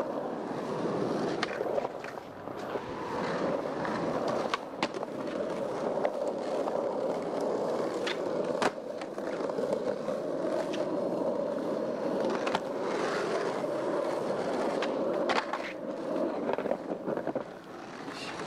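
Skateboard wheels rolling over pavement: a steady rumble, with sharp clicks and knocks every few seconds.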